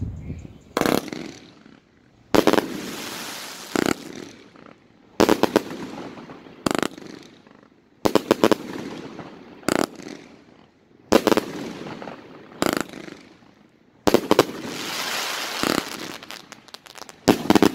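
A 36-shot consumer firework cake, Call of the Cat, firing shot after shot: sharp reports about every second and a half, several of them trailing into a long crackling hiss that fades before the next shot.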